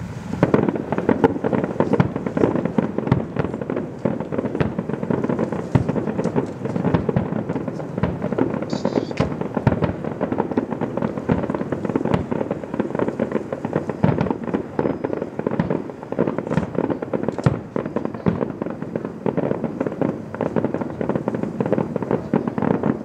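Fireworks display: a dense barrage of aerial shells bursting and crackling, many sharp bangs a second, starting suddenly just after the beginning and keeping up without a break.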